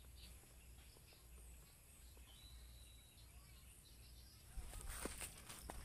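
Quiet outdoor background with faint bird chirps and a short whistled bird call in the middle; about four and a half seconds in, footsteps on grass and dirt begin, uneven and close.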